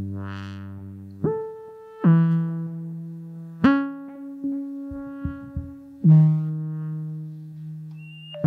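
Synthesizer playing a slow line of held low notes, about five in all. Each note starts sharply, holds a steady pitch and fades slowly before the next begins.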